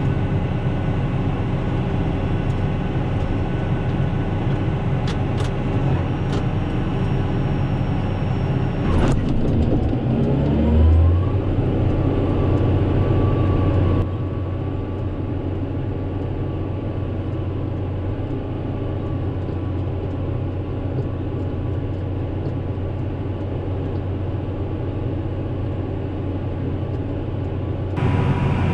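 Tractor engine running steadily, heard from inside the cab, with a rise in engine speed about ten seconds in. The drone drops in level abruptly about halfway through and comes back near the end.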